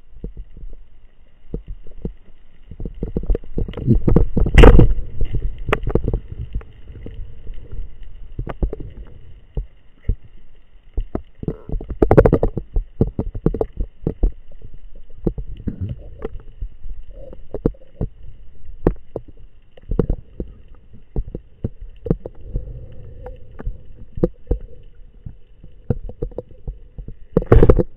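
Underwater sound from a spearfisher's camera: low water rumble that swells and fades, with scattered clicks and knocks. The sharpest knock is about four and a half seconds in, with others near twelve seconds and near the end.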